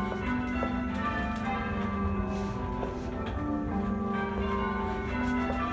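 Church bells being change rung by hand, heard from the ringing chamber below: a steady, even succession of bell strikes, each tone ringing on and overlapping the next.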